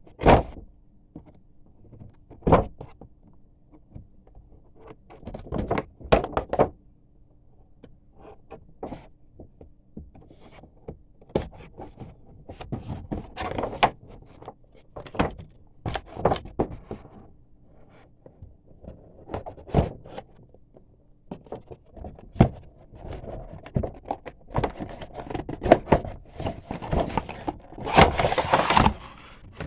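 Packaging and toy soldiers being handled during unboxing: irregular clicks, knocks and taps with bursts of rustling. The rustling is loudest near the end.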